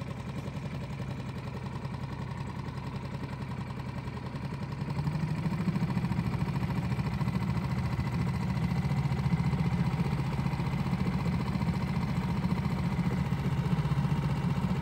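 Boat motor running steadily at low speed, its low hum picking up and getting louder about five seconds in.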